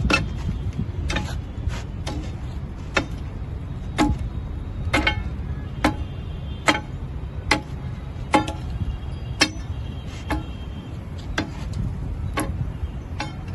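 Steel bar knocking against a freshly poured thermite rail weld while breaking away the glowing mould and excess metal: short, sharp metallic knocks about once a second, over a steady low rumble.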